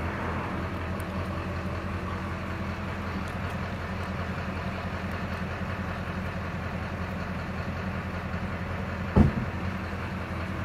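Vehicle engine idling steadily, with one short knock about nine seconds in.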